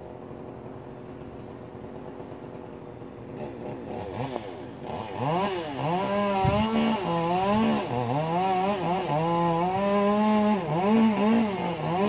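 Chainsaw cutting through the treetop as the tree is topped: the saw is faint for the first few seconds, then from about four seconds in it runs at full throttle, its pitch repeatedly dipping and rising again as it works into the wood.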